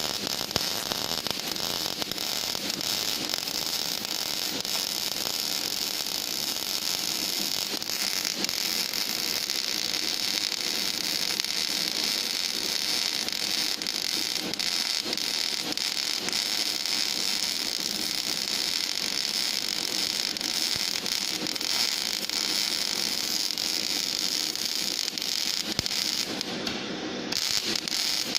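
Gas metal arc (MIG) welding arc burning steadily along a plate joint, a continuous crackling hiss.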